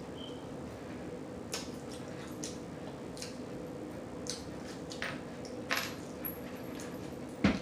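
Close-miked chewing and lip smacking: a string of short, wet clicks and squishes about once a second, over a faint steady hum.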